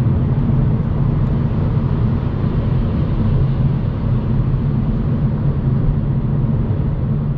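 Steady road noise of a car cruising at highway speed: a low, even drone of tyres and engine.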